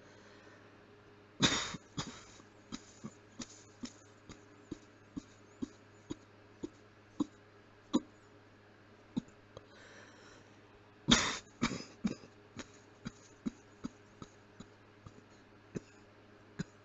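A person coughing with the mouth closed: two strong muffled coughs about ten seconds apart, each followed by a string of short, sharp, quieter catches about twice a second.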